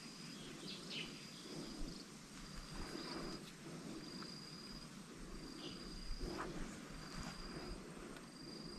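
An insect calling: a high, steady note about half a second long, repeated roughly once a second.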